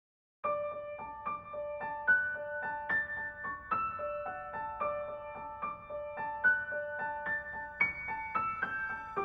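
Background music: a gentle piano or electric-piano melody of quick, evenly paced notes, starting about half a second in after digital silence.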